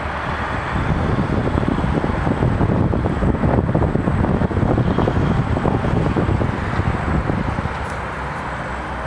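Demolition crane hoisting a clamshell bucket out of a building, its engine working under load. A dense crackling noise swells for several seconds in the middle and eases near the end, with wind buffeting the microphone.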